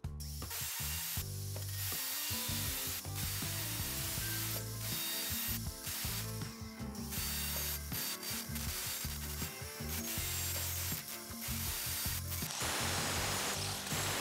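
Cordless angle grinder with a diamond cut-off wheel cutting through a steel handsaw blade: a steady grinding hiss with a few short breaks in the cut.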